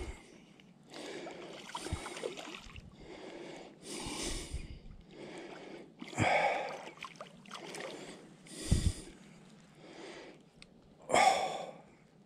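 A man breathing heavily in and out while straining, in a run of separate breaths about a second or so apart, with a louder breath near the end.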